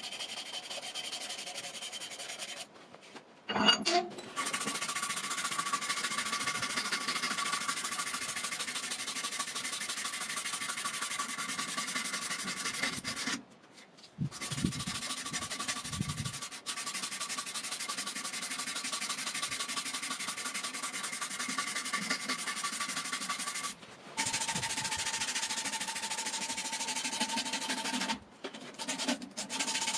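Abrasive cloth strip pulled back and forth around a wooden knife handle, shoe-shine style: a steady sanding hiss in long stretches with a few short breaks. A sharp knock comes about three and a half seconds in.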